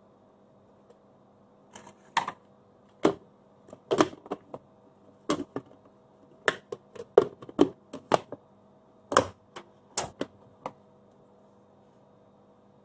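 Plastic blender jar and lid clicking and knocking as the lid is fitted and the jar is set onto the motor base: a string of sharp, irregular clicks over several seconds.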